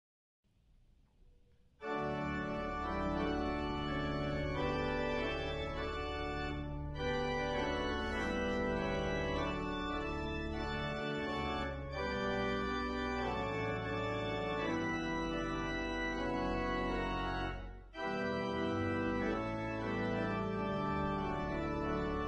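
Church organ playing sustained chords, coming in about two seconds in after a faint start, with a brief break between phrases near the end; the introduction to a congregational hymn.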